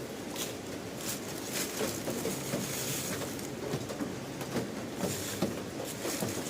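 Rain pattering and dripping: a steady hiss with many small, irregular taps.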